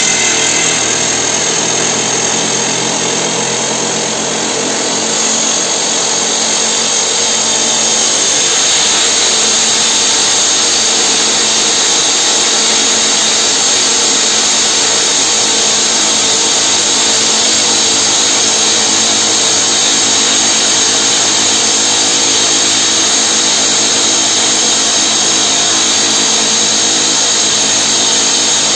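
Hydraulic rock drill on a tunnel bolting rig's boom drilling a rock-bolt hole into the tunnel wall: a loud, continuous drilling noise over a steady machine hum. The drilling grows louder and harsher about six to eight seconds in.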